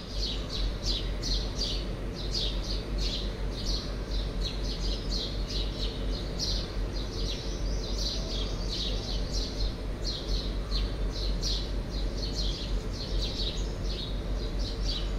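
Birds chirping: many short, high chirps, several a second, over a steady low hum.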